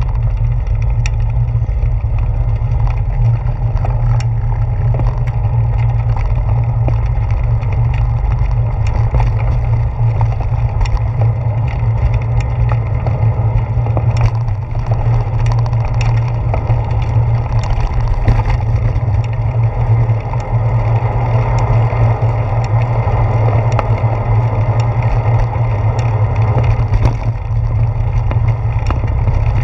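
Steady low rumble of a bicycle ride over a boardwalk, picked up by a handlebar-mounted GoPro: tyre and frame vibration and wind on the microphone, with scattered light clicks and knocks.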